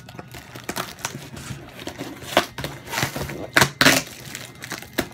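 Crinkling and rustling of plastic packing and tape as a cardboard shipping box is pulled open by hand, with sharp loud bursts about two and a half and three and a half to four seconds in.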